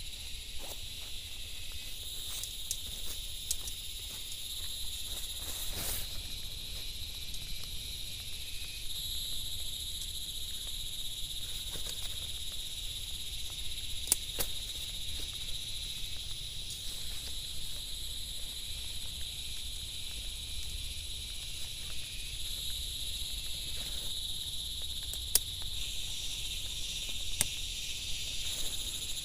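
A steady, high chorus of insects, with a few sharp clicks and light rustling from tent poles and tent fabric being handled.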